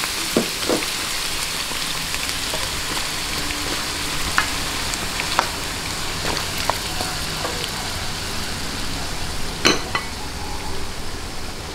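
Carrot and potato chunks sizzling steadily as they fry in hot oil in a nonstick wok, with scattered clicks of a spatula stirring them, the loudest near the end.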